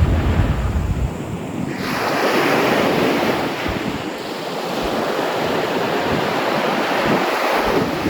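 Sea waves breaking and washing up a beach: a wave's surge of surf swells about two seconds in and hisses on. Wind rumbles on the microphone in the first second or so.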